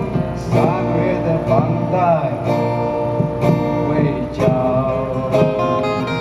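Two acoustic guitars strummed together in a live performance, with a singing voice over them in the first couple of seconds.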